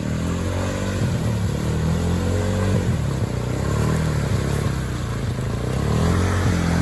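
Vehicle engine revving, its pitch rising and falling several times as the throttle is worked.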